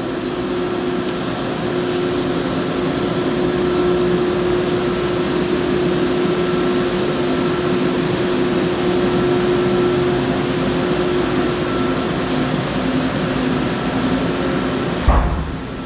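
Steady mechanical hum with several held tones, one of which stops about twelve seconds in; a short low bump near the end.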